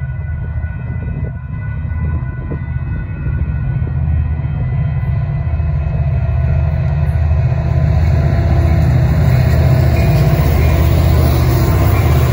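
Approaching Union Pacific freight train led by an EMD GP60 locomotive, its two-stroke V16 diesel rumbling and growing steadily louder as it nears the crossing. Wheel and rail noise fills in more and more toward the end. A few thin steady tones are heard at first and are soon drowned out.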